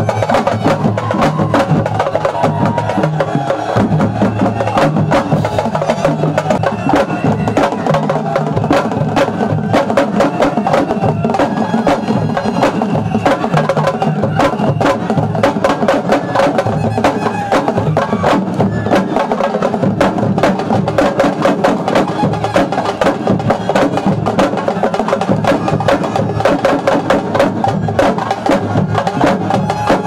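Fast, dense traditional drumming of many sharp strokes without a break, of the kind sabar drum ensembles play at Senegalese laamb wrestling while a wrestler dances.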